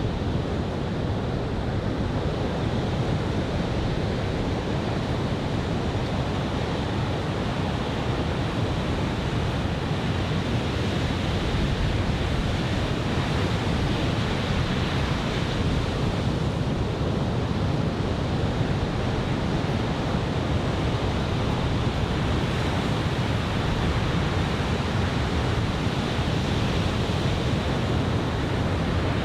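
Steady wash of surf breaking on a sandy beach from a typhoon swell, with onshore wind rumbling on the microphone.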